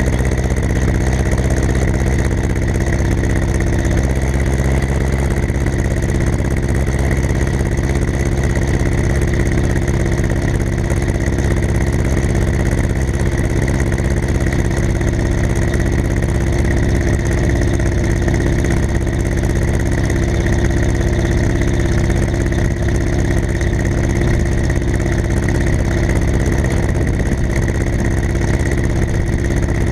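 Ursus C-360 tractor's four-cylinder diesel engine running at a steady, even speed.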